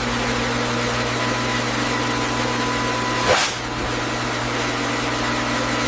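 Industrial leather vacuum dryer running through a cycle at about 20 millibars, a steady machine hum with several held tones. A short hiss or whoosh comes about three seconds in.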